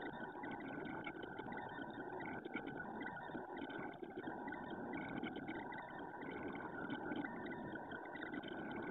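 Ender 3D printer running mid-print: a steady mechanical whir from its stepper motors and fans, with a thin whining tone over it.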